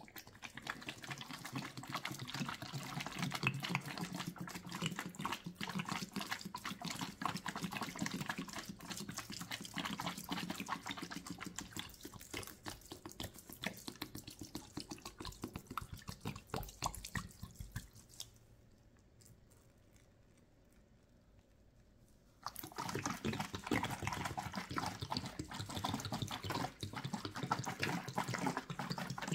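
Soapy water and thick lather from a Fabuloso and dish-soap mix, squishing and crackling with many small wet clicks. The sound thins out for about four seconds near the end, then comes back suddenly at full strength.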